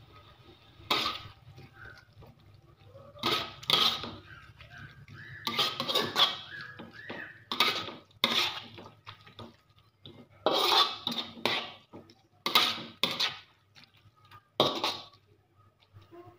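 Slotted metal spatula scraping and clanking against a wok while stirring wet shredded cabbage, in short irregular strokes every second or so.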